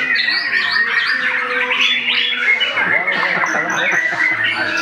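White-rumped shama (murai batu) singing a fast, varied song of sliding whistles, warbles and harsh squawk-like notes.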